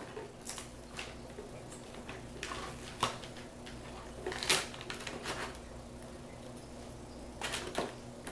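A cat rummaging with nose and paw among plastic treat packets and toys in a cardboard box: irregular crinkling of plastic packaging and scuffs against the cardboard, the loudest about three and four and a half seconds in and again near the end.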